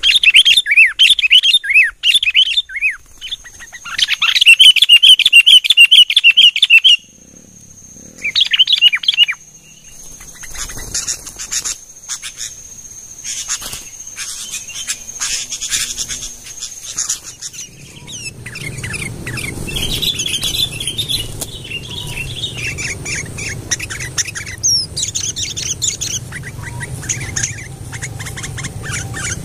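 Sooty-headed bulbuls (kutilang) chirping: a loud run of rapid, chattering calls for about the first seven seconds, a short burst a little later, then quieter scattered chirps over a low steady rumble in the second half.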